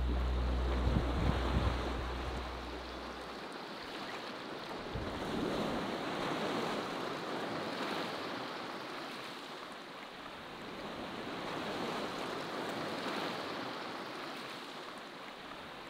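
Small waves washing onto a sandy beach, the sound swelling and fading every few seconds, with some wind. Background music with low held notes ends about three seconds in.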